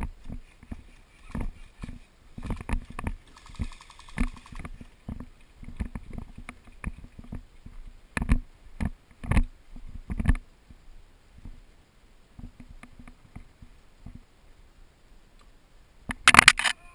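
Irregular thuds and knocks of footsteps and jostled gear close to the microphone, with a short, loud burst of noise near the end.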